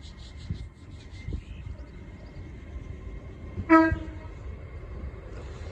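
A single short toot from the horn of an LNER Class 801 Azuma train, about two-thirds of the way in, over a low rumble.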